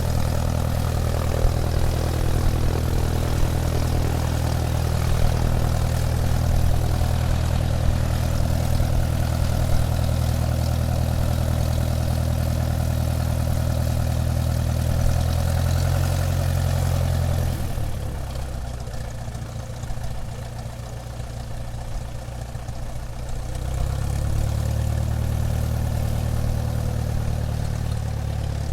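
Airplane taxiing, its engine running steadily at low power with a deep hum. About eighteen seconds in the engine note drops away and it comes back a few seconds later.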